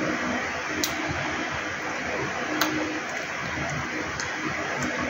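Steady hiss of room noise, with two short sharp clicks about a second and two and a half seconds in.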